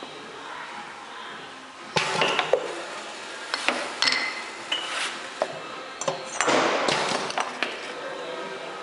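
Glass bottles clinking and knocking against each other and on a stainless-steel table as they are set down and moved: a quick series of clinks with short ringing pings, starting about two seconds in and stopping near the end.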